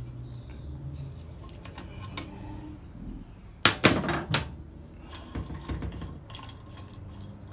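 Metal hand tools and engine parts clanking against each other and a metal workbench top while a small engine's flywheel and starter clutch are being worked on. A few loud clanks come about three and a half to four and a half seconds in, with lighter clicks and taps after.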